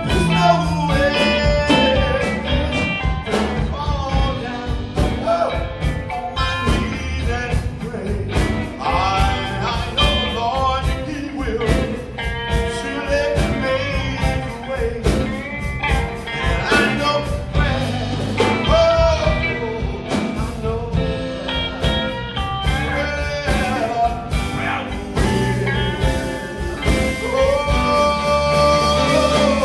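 Live gospel group performing: voices singing over electric guitar and a drum kit, with a steady beat.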